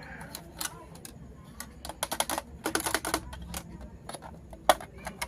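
Small hard plastic toy pieces clicking and tapping as they are handled: scattered sharp clicks, a quick run of clicks about two seconds in, and one louder click near the end.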